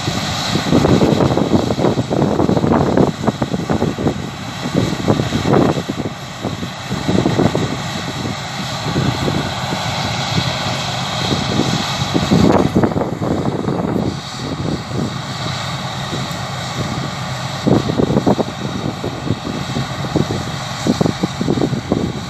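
Claas Lexion 660 combine harvester running as it cuts wheat, a steady engine drone, under irregular gusts of wind rumble on the microphone.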